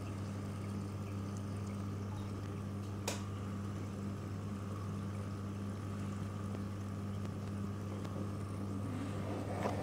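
Steady low hum of aquarium pumps and filtration with a faint watery wash. A sharp click about three seconds in and another near the end.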